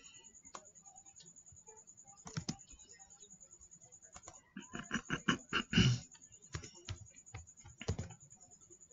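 Computer keyboard keystrokes: scattered single key presses, with a quick run of typing about five seconds in.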